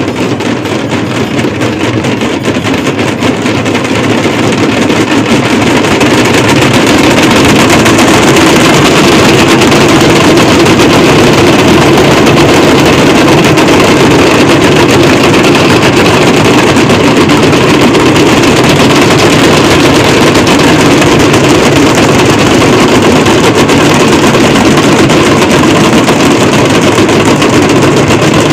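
Loud, dense din of many drums beaten fast by a group of drummers during an evening temple aarti, building over the first few seconds and then holding steady at full volume.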